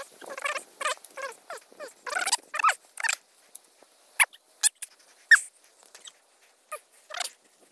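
Animal calls: a run of short, pitched calls in quick irregular succession, thinning out after about three seconds into a few separate sharp chirps.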